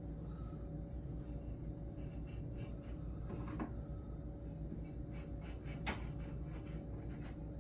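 Pencil scratching short marking lines along a square on the wooden edge of a door, with two sharp clicks, one about halfway through and one near six seconds in.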